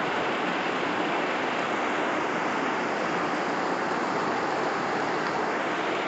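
Steady rushing of rainwater flowing along a flooded street, an even, unbroken noise.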